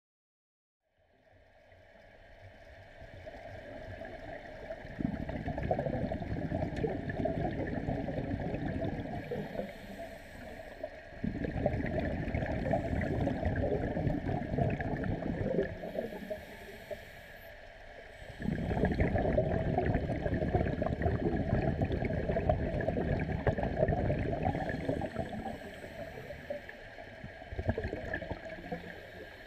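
Scuba regulator exhalations heard underwater: long rushes of bubbling, several seconds each, with quieter gaps for the in-breaths, over a steady faint hum. The sound fades in after about a second of silence.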